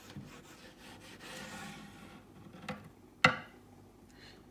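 Faint scraping and rubbing of a screwdriver's metal shaft along the edge of a vinyl-wrapped cabinet door, working wood glue in under the loose vinyl. A sharp knock about three seconds in is the loudest sound.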